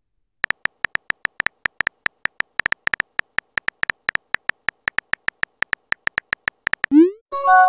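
Texting-app keyboard sound effect: a rapid, slightly uneven run of short high ticks, about six a second, as a message is typed. Near the end comes a quick rising swoosh, then a chime of several tones: the app's message-sent and message alert sounds.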